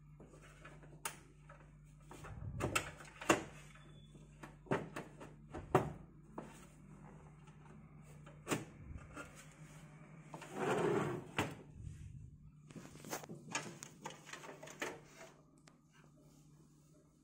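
Scattered metal clicks and knocks of a computer power supply (SMPS) being fitted into a PC cabinet, with a longer scraping noise about ten seconds in.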